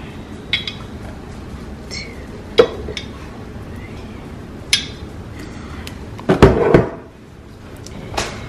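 Kitchen clatter of a glass oil bottle and a small measuring spoon against a mixing bowl: a few separate sharp clinks, then the loudest cluster of knocks about two-thirds of the way through, when the bottle is set down on the countertop.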